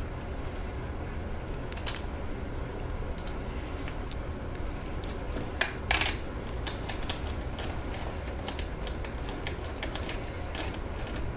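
Irregular metallic clicks and taps of a wrench working a 10 mm nut on an AC line fitting at the compressor, with a louder clack about 2 s in and a cluster of clicks about 6 s in. A steady low hum runs underneath.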